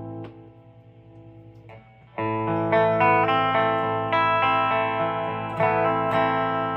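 Electric guitar played clean through a valve amp, with the bridge humbucker coil-split for a single-coil sound. A chord rings and fades at the start, then about two seconds in chords are strummed and re-struck, left to ring.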